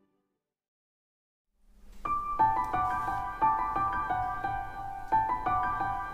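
Background music: silence for about the first second and a half, then a gentle piano tune starts and plays a repeating run of notes.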